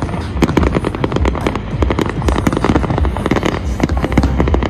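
Fireworks display: a dense, rapid crackle of many small bangs and pops, with a steady low rumble underneath.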